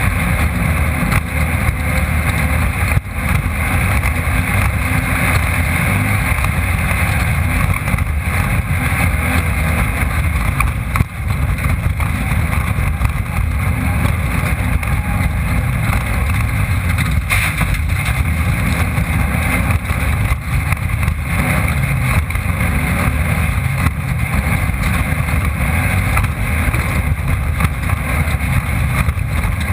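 Off-road race car's engine running hard at speed, heard from the onboard camera inside the car, with wind and chassis noise over it. The loudness stays steady throughout except for two brief dips, about three and eleven seconds in.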